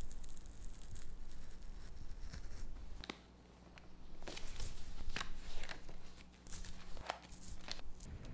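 A sheet of paper being handled, crinkling and rustling in a run of short crisp bursts. There is a lull about three seconds in, then several louder crisp rustles.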